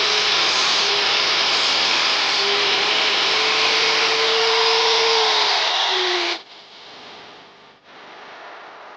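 Electric power tool running steadily, with a whine that wavers and dips in pitch. It cuts off abruptly about six seconds in, leaving a faint hiss.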